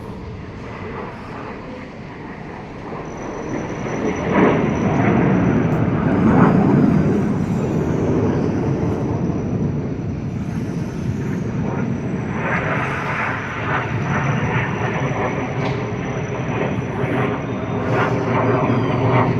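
Jet aircraft of an aerobatic display team, BAE Hawk trainers, roaring overhead in a flypast. The rumble swells about four seconds in, is loudest a couple of seconds later, then stays loud.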